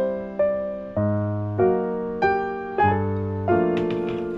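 Background piano music: a slow melody of single notes and chords, a new note struck about every half second and fading before the next.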